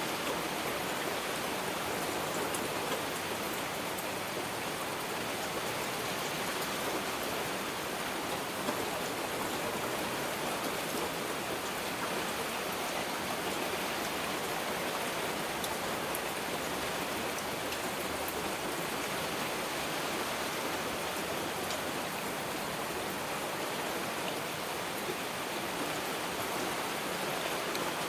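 Heavy rain falling steadily, an even hiss with scattered faint drop ticks.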